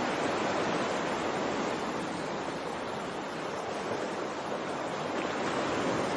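Water waves washing in a steady rush, easing slightly in the middle and swelling again near the end.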